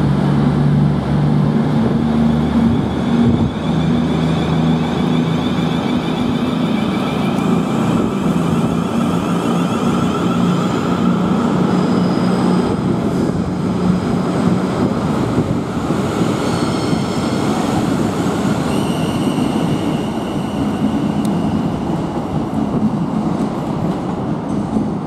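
A Class 450 Siemens Desiro electric multiple unit pulling away and accelerating past. Its traction motors whine in steady tones that climb slowly in pitch as it gathers speed, over a continuous low running rumble.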